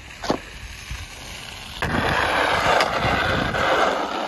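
Plastic snow shovel blade scraping over snow-covered pavement in one long push of about two and a half seconds, starting a little before halfway. A short knock comes about a quarter second in.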